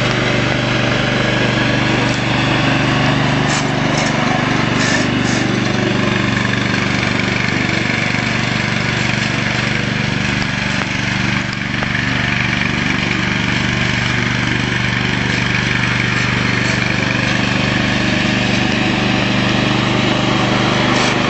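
Masport ride-on lawnmower's engine running steadily at a constant speed, with a brief dip about halfway through.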